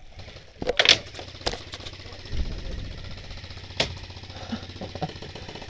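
Airsoft guns firing: a few sharp cracks, the loudest cluster about a second in and another single crack near four seconds in, over a faint rapid rattle.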